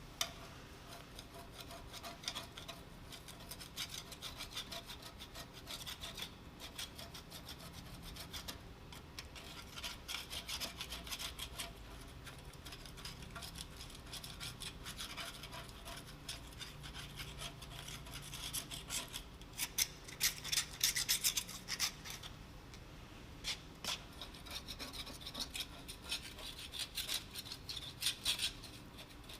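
Hand scraping on old lathe paint softened with citrus stripper: quick, rasping strokes repeated in runs, louder for a couple of seconds about two-thirds of the way through.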